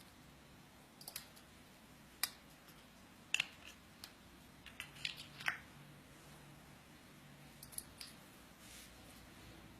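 Irregular light clicks and taps, about a dozen, bunched in the middle.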